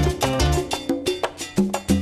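Upbeat Latin-style music with a steady beat, cowbell and percussion over a bass line.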